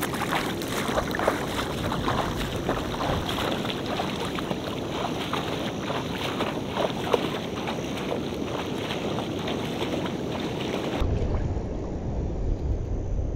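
Legs wading through shallow water, a steady run of splashing with each stride. About eleven seconds in the splashing stops and wind rumbles on the microphone.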